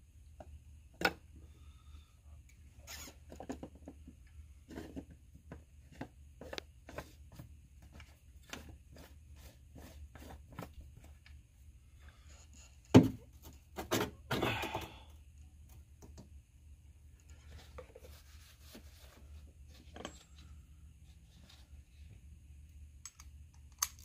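Scattered small clicks, taps and knocks of parts being handled while the fuel filter is fitted back into the fuel bowl of a Ford 7.3L diesel, with one sharp knock about thirteen seconds in and a brief clatter of rubbing just after it, over a faint steady low hum.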